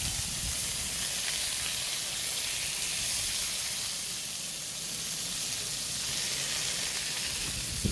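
Food frying in a pan, a steady sizzle with faint crackles.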